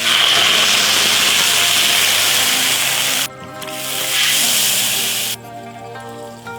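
Loud sizzling of food frying in hot oil, which starts suddenly, cuts off about three seconds in, swells back and cuts off again about two seconds later. Background music plays throughout.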